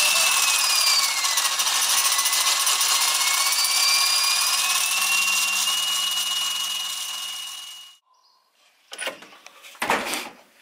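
A small motor whirring, with a whine that dips in pitch and climbs back. It fades out and stops about eight seconds in.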